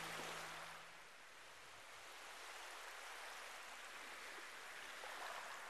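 Faint, steady outdoor background noise, an even hiss, left after the last notes of guitar music fade out about a second in.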